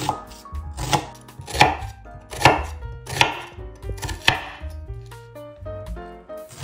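Chef's knife slicing through a halved onion on a wooden cutting board: six crisp cuts, each ending in a knock of the blade on the board, about one every 0.8 s, then a pause near the end.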